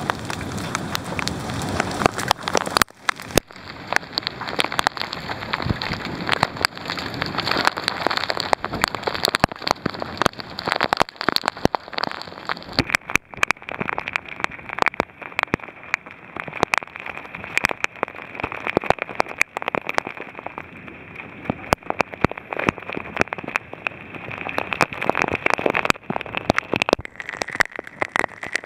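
Heavy rain from a hailstorm pouring down, with many sharp taps of impacts striking close to the microphone.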